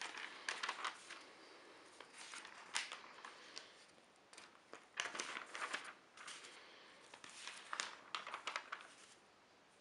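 Newsprint pages being turned and handled, rustling and crinkling in about five short bursts with quieter pauses between.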